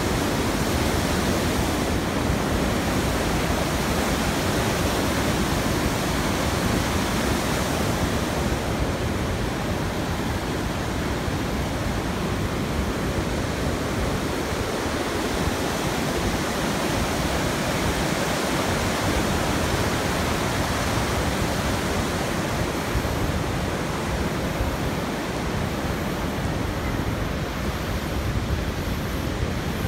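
Steady road and wind noise of a moving car: an even rush with no breaks.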